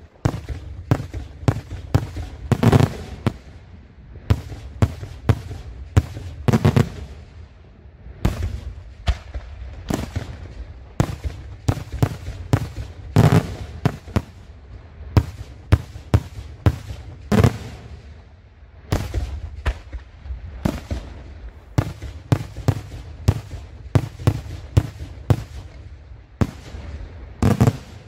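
Daytime fireworks: aerial shells and salutes bursting overhead in a rapid, irregular string of loud bangs, several a second. Heavier clusters of reports come every few seconds, over a low rumble.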